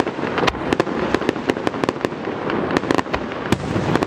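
Fireworks display going off: a rapid, uneven string of sharp bangs and crackles, about five a second.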